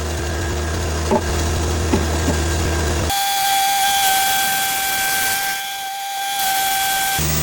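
Cook's AC36 band sawmill running on red cedar: a low hum with hiss at first, then about three seconds in a steady high-pitched whine over a hiss that lasts until just before the end, as the band blade runs through the log.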